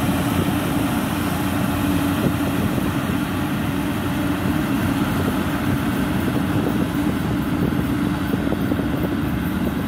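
Yanmar YH850 rice combine harvester running steadily as it cuts rice, its diesel engine and threshing machinery making a continuous drone.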